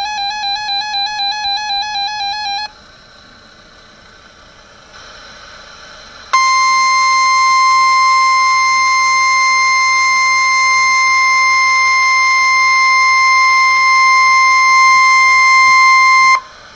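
A warbling electronic tone stops about two and a half seconds in, followed by faint radio hiss. About six seconds in, the NOAA Weather Radio warning alarm tone starts: a steady single tone of about 1050 Hz held for about ten seconds, then cut off sharply. It is sent as a weekly test of the receivers' alert activation.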